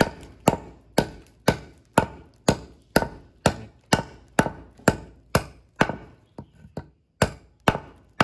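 Steel knife blade, hand-forged from M30 gun-barrel steel, chopping repeatedly into a wooden block at a steady rate of about two sharp chops a second. A few lighter strokes and a short gap come about two-thirds of the way through.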